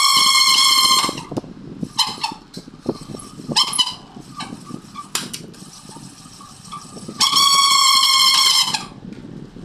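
Pensonic stand fan making a loud noise: a high-pitched squeal that comes in spells. It sounds for about a second at the start, briefly twice around two and three and a half seconds in, and for about a second and a half near the end, over a continuous irregular rattling clatter.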